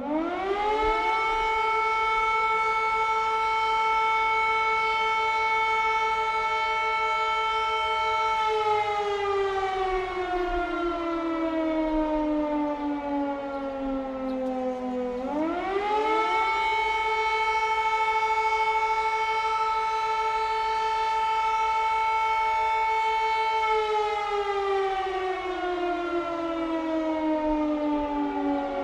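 Civil defense air raid siren. It winds up quickly to a high, steady wail, holds for about eight seconds, then slowly winds down. About halfway through it winds up again and repeats the cycle.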